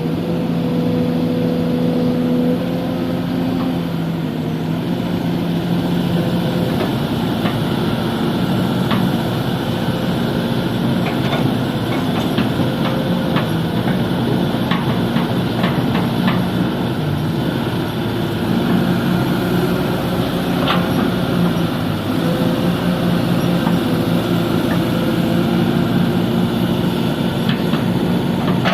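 Kobelco SK200 hydraulic excavator's diesel engine running under load as it digs and loads soil, its pitch shifting now and then as the hydraulics work. A few scattered sharp knocks sound over it.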